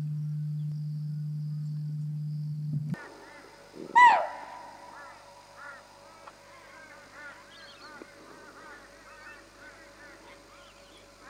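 A steady low hum that cuts off about three seconds in. Then one loud call that falls in pitch, followed by many short calls from a flock of birds, scattered and overlapping.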